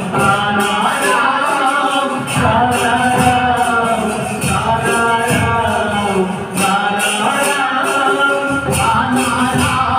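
Live devotional kirtan: a male voice sings in phrases over harmonium and barrel hand drums, with regular percussion strikes.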